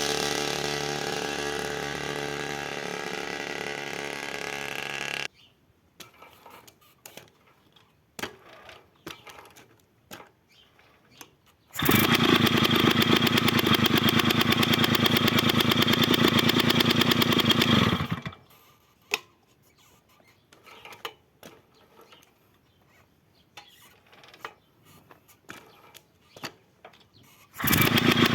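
Puch moped's small two-stroke engine runs for about six seconds and then stops. It starts and runs again near the end. Light clicks and knocks fill the quiet stretches between.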